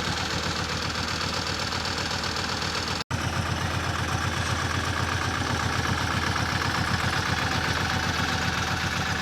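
Road roller's engine running steadily with an even low pulsing, cut off for an instant about three seconds in.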